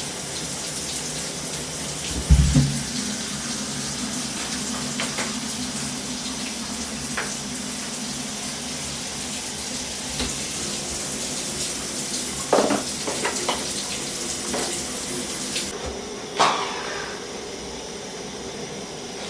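Kitchen tap running into a sink during dishwashing, a steady rush of water with scattered clinks and knocks of utensils.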